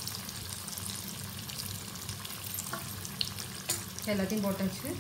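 Yam pieces deep-frying in hot oil in an iron kadai: a steady sizzle full of small crackling pops. About four seconds in there is a brief pitched, voice-like sound.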